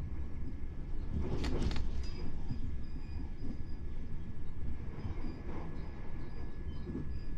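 Southern Class 377 Electrostar electric multiple unit heard from inside the carriage, running at speed: a steady rumble of wheels and traction, with a brief louder rush about a second and a half in.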